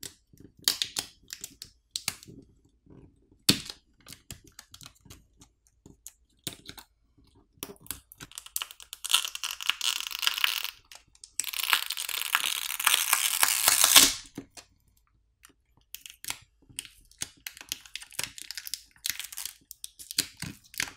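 Scattered small clicks and rustles of fingers working at a phone's battery, then, from about eight seconds in, a long crackling peel in two stretches as the OnePlus Nord N200 5G's battery pull tab and adhesive tear away from the midframe, loudest just before it stops. A few light clicks and taps follow as the battery is lifted.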